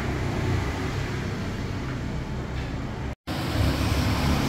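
Steady low rumble of motor vehicle noise, cutting out for a moment about three seconds in.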